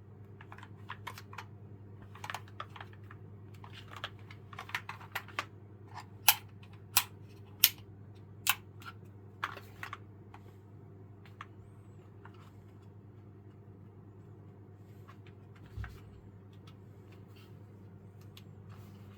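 Keystrokes on a Keychron K4 version 3 mechanical keyboard: irregular clicking, with a handful of louder strokes about six to nine seconds in, then only the odd keystroke. A steady low hum runs underneath, and there is one dull thump late on.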